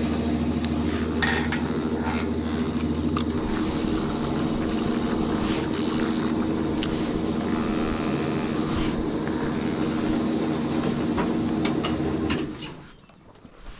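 Fuel dispenser's pump motor humming steadily while petrol flows into a motorcycle's tank, with a few light clicks; the hum cuts off abruptly near the end as delivery stops.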